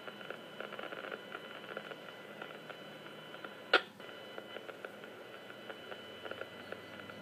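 Radio receiver audio: faint irregular crackling static over a steady high-pitched whine, with one sharp, loud click a little past the middle.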